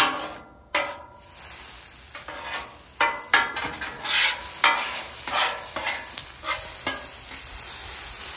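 Metal spatula scraping and tossing diced onions and bell peppers across the hot steel top of a Camp Chef Gridiron griddle. The vegetables sizzle steadily under a string of quick, sharp scrapes.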